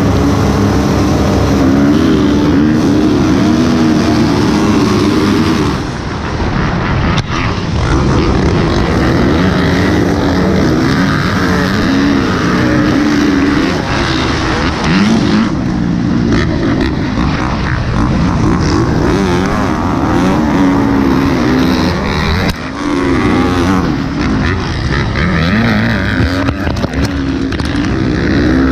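Motocross dirt bikes held on the throttle at the start gate, then launching about six seconds in. The camera rider's Husqvarna FC350 single-cylinder four-stroke runs hard among the other bikes, its revs rising and dropping again and again through the gears.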